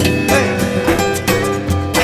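Background music led by plucked and strummed guitar, with a steady rhythm.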